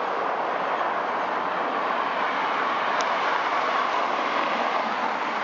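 Steady noise of multi-lane highway traffic, with a faint tick about three seconds in.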